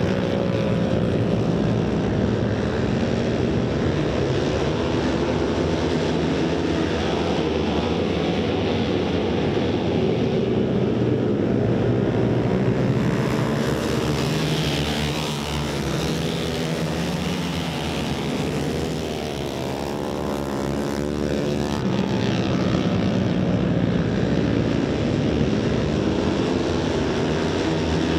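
A pack of flat-track racing motorcycles running at race pace around a dirt oval, several engines overlapping. Their pitch rises and falls as bikes pass and roll off for the turns, most clearly in the middle stretch.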